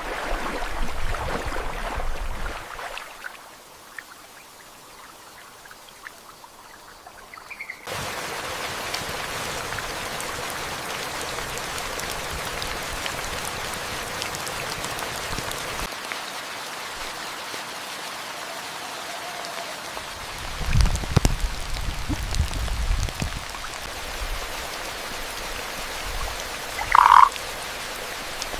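Rain ambience in tropical forest: after a quieter stretch, steady rain comes in abruptly about eight seconds in. There are low rumbles about two-thirds of the way through, and near the end a frog gives one short, loud croak.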